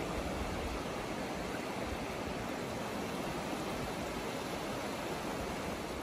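Small sea waves washing gently over a shallow sandy shore, a steady, even hiss of surf.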